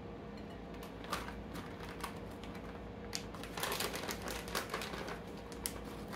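Raisins being tipped from a plastic bag into a bowl: scattered clicks and bag crinkling, with a dense run of crackles a little past the middle.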